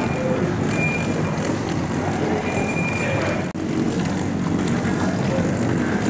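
Rolling suitcase wheels rumbling steadily on a hard floor, with a faint high squeak now and then and a brief break about three and a half seconds in.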